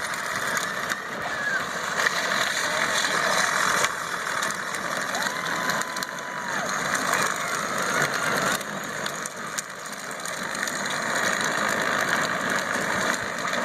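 Jeep engine running under a steady rushing noise, with a brief held tone about five seconds in.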